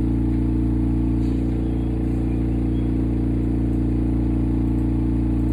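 Steady, loud low hum with a buzzing edge from running equipment, holding one pitch throughout.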